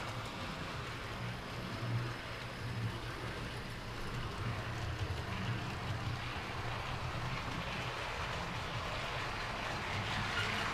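Model trains running on a model railway layout: the steady hum of their electric motors with the rolling rattle of wheels on the track, a little louder near the end.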